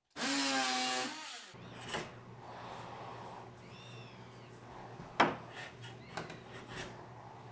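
A small hand-held power tool runs with a steady whine for about a second and a half and then cuts off. A quieter low hum follows, with scraping against the wood, a few knocks and short squeaks.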